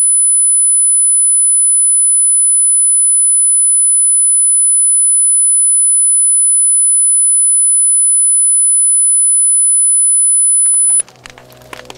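Electronically generated anti-barking tone: a single loud, steady, very high-pitched pure tone, the kind sold as a 'silent' dog-whistle sound to startle a barking dog. It cuts off abruptly about eleven seconds in.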